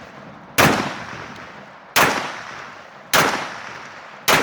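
Service rifle fired four times in quick succession, about one shot every 1.2 seconds, each sharp report trailing off in an echo.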